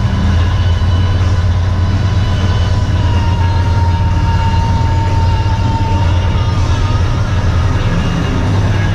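Dump truck's diesel engine droning steadily under way, heard from inside the cab, with road noise. A thin high whistle rises in for a few seconds in the middle, then fades.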